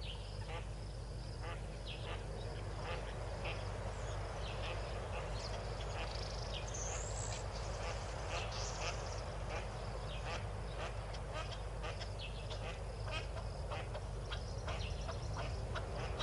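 Yellow-billed duck and her ducklings calling: many short, high calls, several a second, over a steady low hum.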